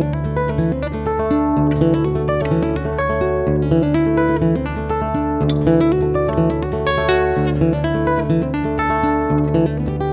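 Background music: acoustic guitar playing a quick run of plucked notes over a steady low bass.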